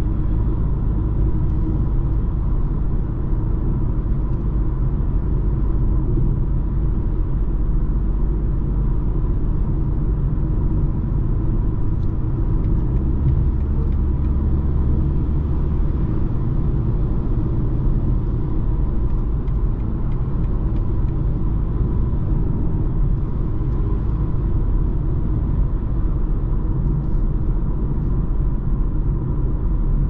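Cabin noise of a BMW cruising on a motorway: a steady low rumble of engine and tyre noise with a faint steady whine above it. A deeper drone swells for a few seconds about halfway through.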